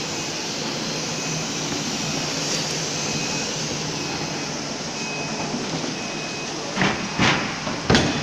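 A CNC woodworking machining center running with a steady mechanical noise, with a faint short tone repeating about once a second. Three short, loud bursts come in the last second and a half.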